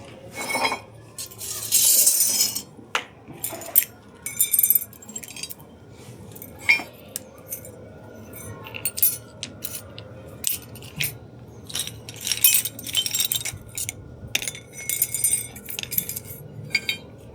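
Loose old metal motorcycle parts clinking and clattering against each other as they are handled and sorted by hand, in irregular sharp clinks, loudest about two seconds in and again around twelve to thirteen seconds.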